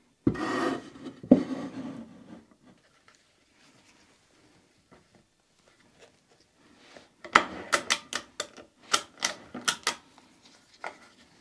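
Ratchet strap being tightened by hand around a glued-up stave drum. First a rustling scrape of the webbing being pulled through, then a quick run of sharp ratchet clicks, about four a second, from about seven seconds in.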